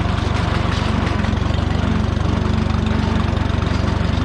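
A 1969 Minneapolis-Moline Jet Star 3 Super tractor's engine runs steadily under load, powering a sickle bar mower through the PTO as it cuts grass.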